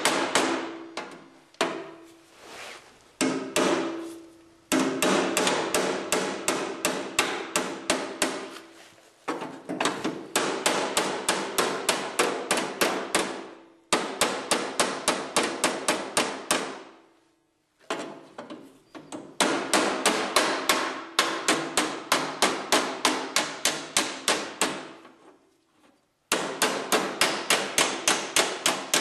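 Body hammer striking a bent steel sheet-metal panel of an Allis-Chalmers 310 tractor against a dolly held behind it, knocking out dents. The blows come in quick runs of about four or five a second, with short pauses between runs, and the panel rings after the blows.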